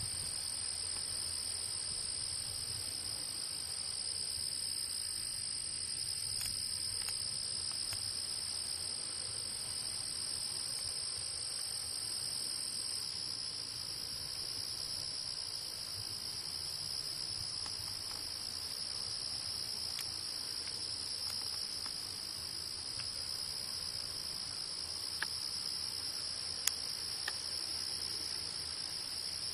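Steady chorus of singing insects: continuous high-pitched shrilling at two pitches, the higher one dropping out partway through. A few faint clicks near the end.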